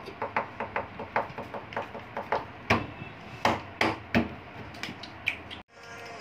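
Irregular sharp knocks and taps on a hard board, a few a second, with several louder knocks about halfway through; the sound cuts off abruptly near the end.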